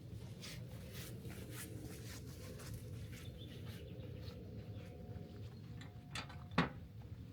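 Footsteps on a forest trail, about two a second, over a steady low rumble, with one sharp click near the end.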